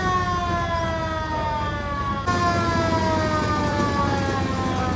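Fire engine siren sounding one long tone that slides slowly and steadily down in pitch, over a low engine rumble.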